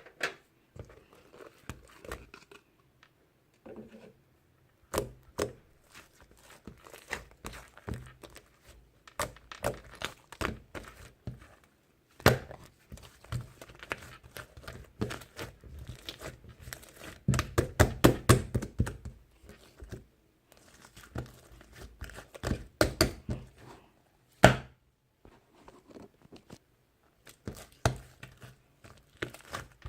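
Close-up handling of objects: irregular crinkling and rustling with many light taps and knocks, busiest about two-thirds of the way through, and one sharper knock near the end.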